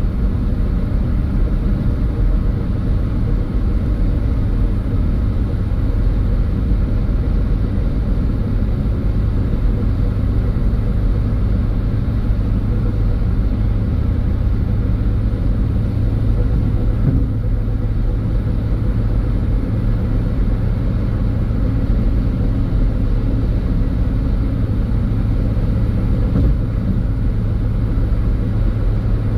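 Car driving at a steady speed: a constant low rumble of tyre and engine noise.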